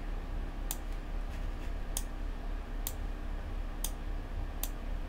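Computer mouse clicking: about five sharp, separate clicks roughly a second apart, over a low steady hum.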